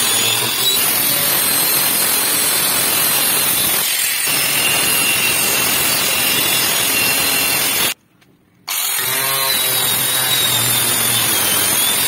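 Handheld electric angle grinder with a thin cut-off disc running at speed and cutting through a plastic water tank: a steady high whine over dense grinding noise. The sound cuts off abruptly for under a second about eight seconds in, then the grinder is cutting again.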